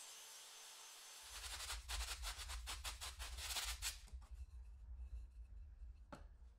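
A kerfed wooden dowel rubbing and clicking as it is rolled and flexed by hand on a wooden tabletop: a quick run of scraping clicks, loudest about two to four seconds in, then thinning out, with one sharp knock near the end. A faint steady hiss comes before it, and a low hum runs under it.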